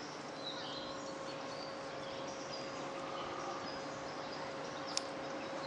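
Outdoor ambience with scattered bird chirps over a steady hum, and a single sharp click about five seconds in.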